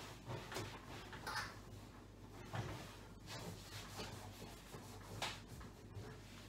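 Faint scattered rubbing and light knocks of hands and a cloth working over a microwave, over a low steady hum.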